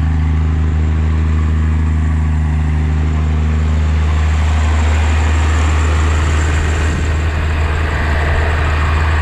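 1993 Dodge Ram 350's 5.9-litre Cummins inline-six turbo diesel idling steadily, running on water-contaminated fuel and smoking heavily as the water is flushed through.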